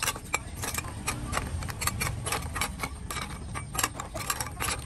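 Quick, irregular clicks and taps, several a second, from a pan of snails in simmering chili sauce being stirred with a metal ladle, shells knocking against the ladle and the pan.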